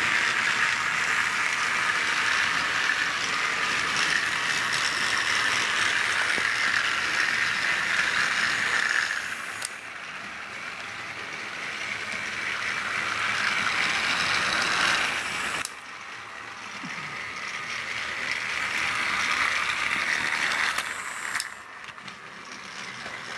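Battery-powered TrackMaster toy train engines whirring along plastic track, their small geared motors running steadily. The sound cuts off sharply twice and builds again each time as a train comes closer.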